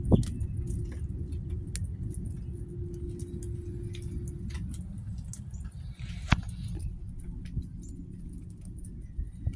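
Outdoor garden ambience: a steady low rumble with scattered light clicks and taps, and a sharper click at the start and again about six seconds in.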